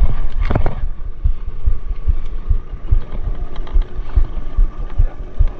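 Irregular low thumps of waves slapping a small wooden boat's hull, with wind buffeting the microphone, and a sharp knock about half a second in.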